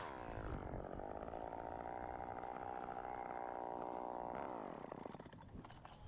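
Chainsaw engine dropping off high revs to a steady idle, then shutting off about four and a half seconds in, its pitch sliding down as it stops.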